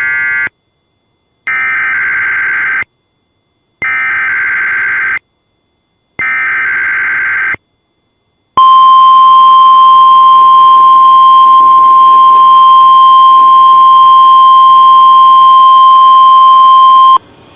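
Emergency Alert System broadcast: four short bursts of screechy digital data tones (the SAME header) about a second apart, then a steady single alert tone, the 1050 Hz NOAA Weather Radio warning alarm, held for about eight and a half seconds before cutting off.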